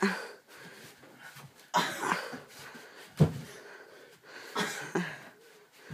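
Heavy breathing and scuffling from a play-fight in a small room, with one sharp thump about three seconds in.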